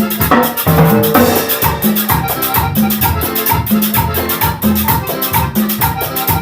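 Latin dance band playing an instrumental passage live: a steady percussion rhythm with shakers and drums over a bass line and pitched instruments.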